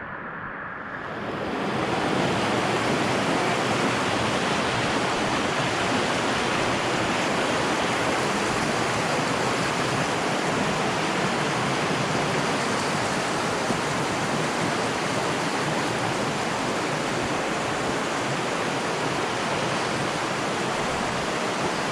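Fast-flowing river rushing steadily over rocks. It swells up about a second in and then holds level.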